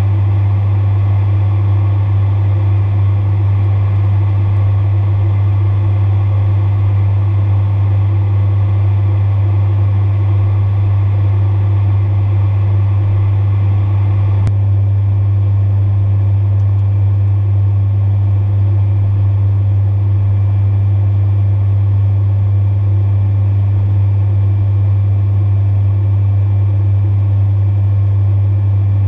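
Steady drone of a Beechcraft King Air 350's twin PT6A turboprops heard inside the cockpit in flight, dominated by a loud low propeller hum. A single brief click comes about halfway through.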